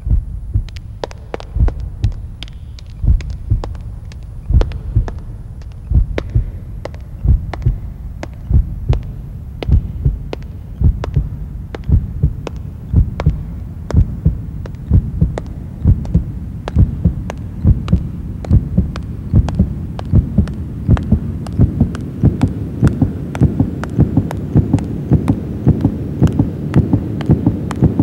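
Heartbeat sound effect: paired low thumps over a low hum, gradually quickening.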